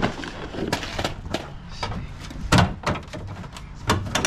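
Plastic interior trim being pulled off a Ford Crown Victoria and handled: a series of sharp knocks and snaps, the loudest about two and a half seconds in.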